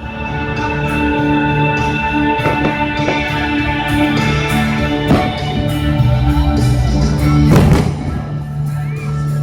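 Recorded music playing over stadium loudspeakers, with a few sharp firework bangs about 2.5, 5 and 7.5 seconds in. The last bang is the loudest.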